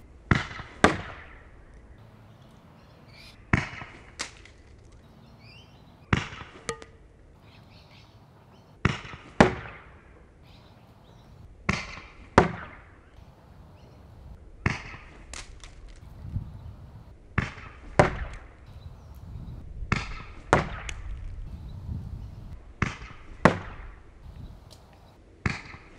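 Milsig HR3 CO2-powered Nerf pistol firing Hydron balls in slow, single semi-automatic shots, about ten in all, roughly one every three seconds. Each shot is heard as a pair of sharp cracks about half a second apart.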